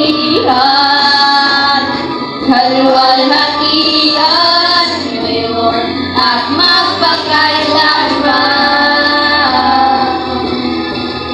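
A group of girls singing a worship song together into microphones, with long held notes.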